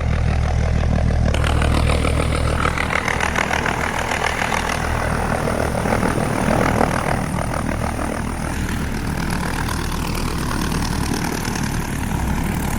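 Helicopter engine and rotors running steadily: a constant low drone under a rushing noise.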